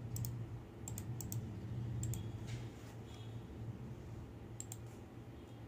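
Computer mouse button clicked in several quick pairs, double-clicks, over a steady low hum.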